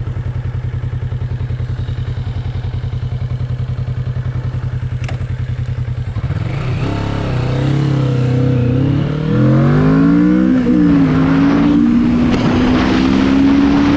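Cruiser motorcycle engine idling with a steady, even pulse, with a single click about five seconds in. It then pulls away and accelerates up through the gears: the engine note rises, drops at each shift, and settles into a steady cruise, with wind rush building as the speed climbs.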